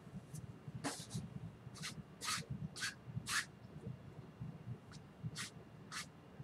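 Paintbrush bristles scratching across a stretched canvas in short strokes, about nine quick swishes in uneven runs, working oil paint into storm clouds.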